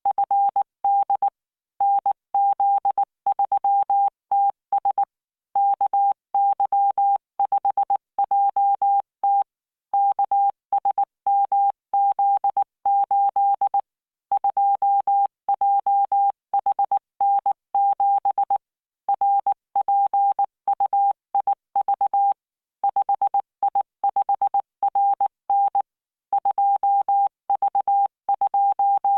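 Morse code practice tone at 19 words per minute: a single steady electronic beep keyed on and off in short and long marks (dots and dashes), generated by the Learning Morse CW training program, with brief pauses between words.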